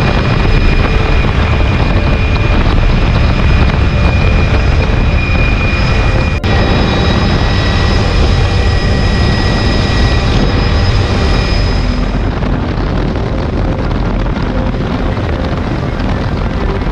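Cabin noise of a tour helicopter flying with its doors off: the rotor and engine run steadily under heavy wind rushing past the open doorway, with a few steady high whines. There is a brief dip about six seconds in.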